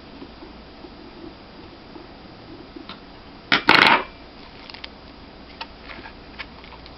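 Small clicks of a laptop hard drive in its case being handled, with one sharp, loud clatter about three and a half seconds in.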